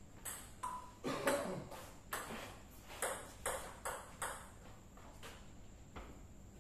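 Table tennis ball clicking off bats and the table in quick succession, about two hits a second, dying out about five seconds in.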